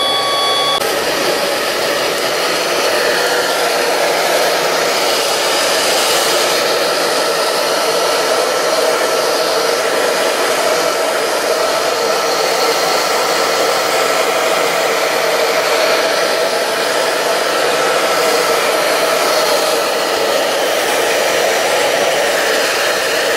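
Tap running steadily into a sink, water rushing onto a cloth mouse pad as it is rinsed of shampoo. A thin whine from the tap, which sounds like a dying cat, stops about a second in.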